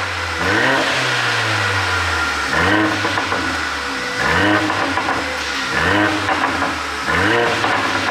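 Mercedes-AMG A45's turbocharged 2.0-litre four-cylinder being blipped repeatedly, about six short rev blips that rise and fall in pitch. Between the blips the exhaust crackles and pops on the overrun, the sound of an ECU pop-and-bang tune.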